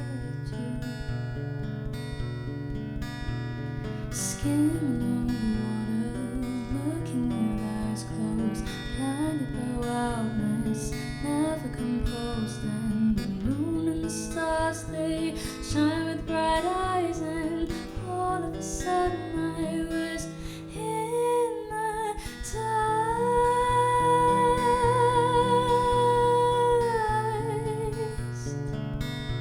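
A solo singer accompanied by an acoustic guitar, performing a song. Near the end the voice holds one long note with vibrato over the guitar.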